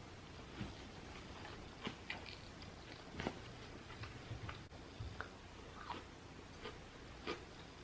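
Close-up mouth sounds of a person chewing a tarantula sushi roll with soft-shell crab, faint, with scattered soft clicks and wet smacks.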